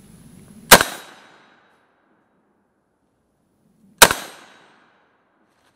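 Two rifle shots from a 5.56 Galil ACE with a 16-inch barrel, about three seconds apart, each a sharp crack with a short decaying echo.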